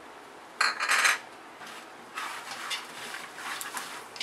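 Wooden spatula stirring and scraping crisp fried boondi and spiced tempering in a large metal pot, with a loud rasping stroke about half a second in and lighter scraping later.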